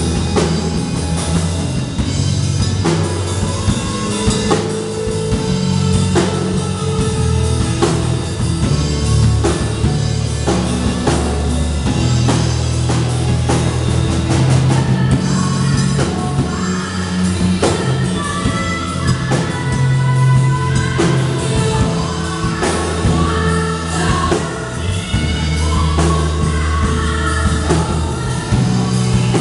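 Live worship band playing a rock-style song: drum kit, electric bass, electric guitar and keyboard, with a woman singing over the band near the end.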